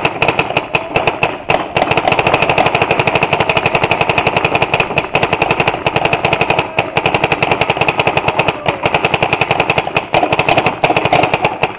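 Paintball markers firing a long, rapid stream of shots, many a second, with only brief gaps, like a machine gun.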